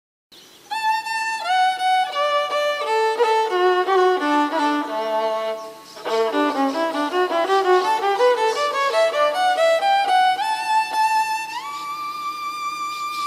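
Solo violin playing a slow melody: a falling phrase, a brief pause about six seconds in, then a rising phrase that slides up to a long held high note near the end.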